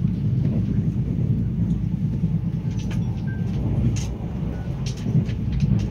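Steady low rumble of a Korail Mugunghwa-ho passenger train running along the track, heard from inside the carriage, with a few faint clicks about halfway through.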